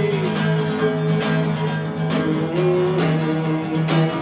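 Instrumental passage of a song with a steady beat and held notes, between sung lines.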